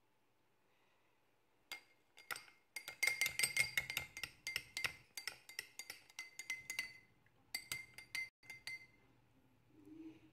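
A metal spoon stirring a drink in a glass, clinking rapidly against the side with a ringing tone. The clinking comes in two spells, with a short pause about seven seconds in.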